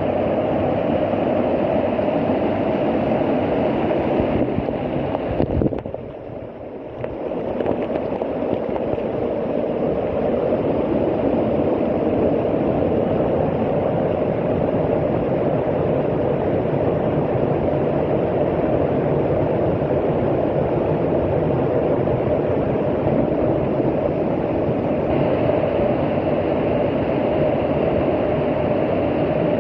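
Waterfall: a steady, loud rush of falling water, dipping briefly about six seconds in before returning.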